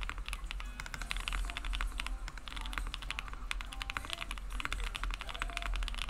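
Fast, continuous typing on a 60% mechanical keyboard with a 3D-printed case, PLA half-plate, Gateron Oil King switches with cream stems and GMK keycaps, each keystroke a quick click, with a sound the builder calls "pretty nutty". The typing briefly thins a little past two seconds in.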